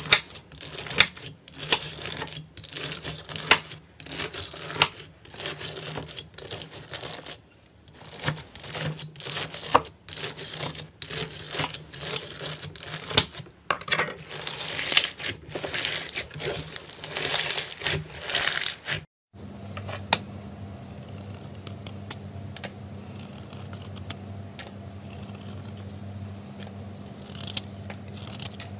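Hands pressing and squeezing a slime packed with small plastic pearl beads: dense clattering clicks and crackles in bursts with short pauses. About two-thirds of the way in, this gives way to a quieter soft scraping over a steady low hum, as a plastic card cuts through a glitter-coated foam block.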